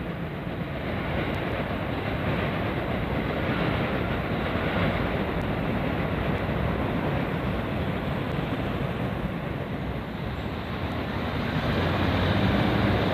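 Train running on the rails: a steady running noise of wheels and motors that grows a little louder near the end.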